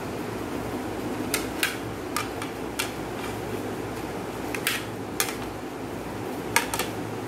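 Hard plastic plates clicking against one another as they are set down and overlapped one at a time: about nine short, sharp clicks at irregular intervals, some in quick pairs, over a steady low hum.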